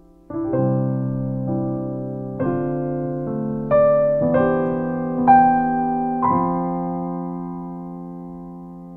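Improvised piano playing a slow series of chords and melody notes. The last chord is struck about six seconds in and left to ring and fade away.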